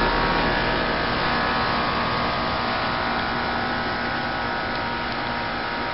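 Outdoor unit of a Bryant Evolution 16 SEER heat pump running: a steady rush of the condenser fan over a compressor hum, with several steady tones in it. It eases a little quieter toward the end.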